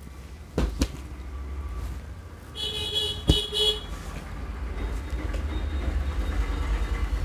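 A vehicle horn sounds for about a second midway, over a low rumble that builds toward the end. A few sharp knocks come near the start and during the horn.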